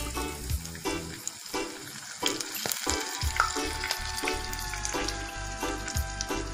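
Sizzling of batter-coated Malabar spinach leaves deep-frying in hot mustard oil, under background music with a steady beat.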